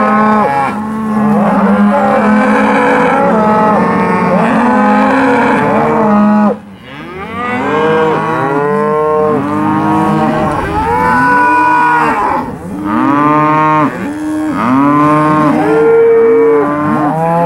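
A pen of Angus-sired steer calves bawling, many calls overlapping with hardly a break. The sound drops away briefly about six and a half seconds in.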